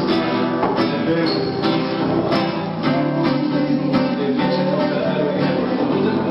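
Nylon-string classical guitar strummed in a steady rhythm, a few strokes a second.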